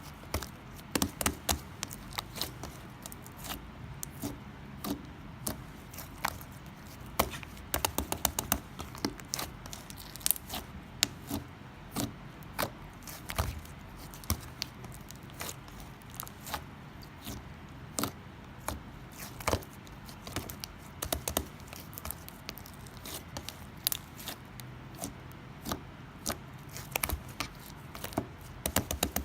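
Irregular sharp taps and clicks, sometimes several in quick succession, over a faint steady background hum.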